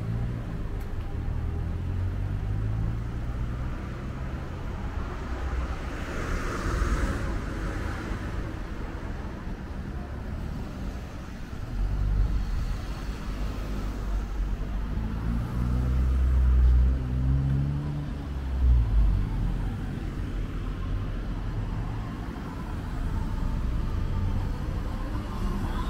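Street traffic: cars driving past close by on the road, with a steady low rumble and tyre noise. In the middle, one vehicle's engine rises in pitch as it accelerates past.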